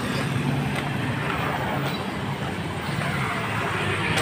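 Street traffic on a busy road: motorbike and scooter engines running and passing, making a steady low hum.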